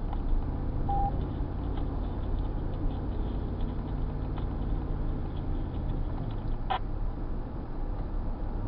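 Steady engine and road rumble inside a moving vehicle, with a short beep about a second in and a single click near the end.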